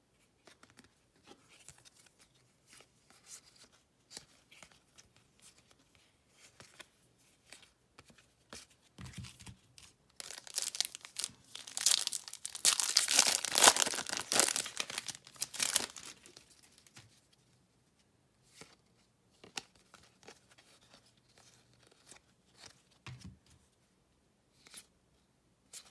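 A trading card pack's wrapper being torn open and crinkled, loud and dense for about six seconds in the middle, with light handling clicks before and after.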